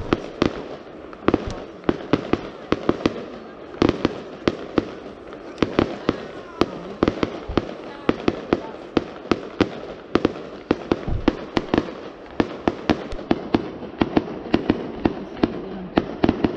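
Fireworks display: a rapid, irregular barrage of sharp bangs from shells bursting, about three or four a second, without a break.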